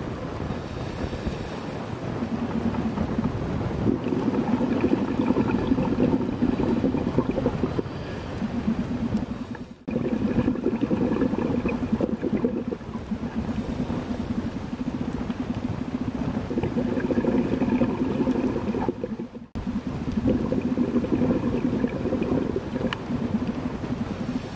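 Scuba diver breathing through a regulator: long bubbling stretches of exhaled air lasting several seconds, each broken by a short hiss of inhalation.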